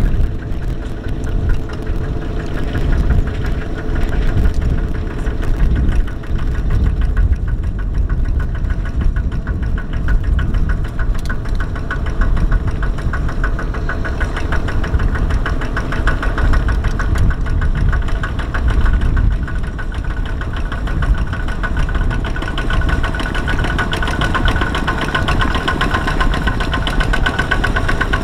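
Kubota ZT155 single-cylinder diesel engine on a two-wheel walking tractor, chugging steadily with a fast even beat of firing strokes as it pulls a loaded trailer through mud.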